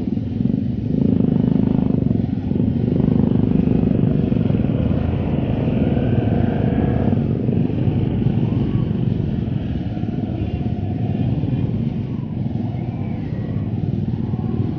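Motorcycle engines running at low speed as a group of bikes rolls along, heard from on the rider's own motorcycle.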